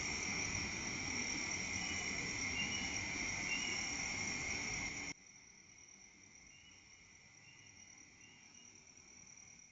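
Night chorus of crickets and other insects: steady, continuous high trilling, with a few short faint chirps on top. About halfway through, the background hiss drops away abruptly and the chorus carries on fainter.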